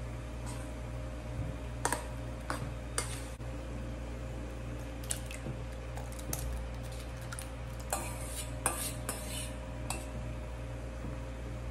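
A metal spoon clinking and scraping against a stainless steel mixing bowl and a glass baking dish as a wet bread pudding mixture is stirred and scraped out. The clinks come as scattered taps, with a busier run about eight seconds in, over a steady low hum.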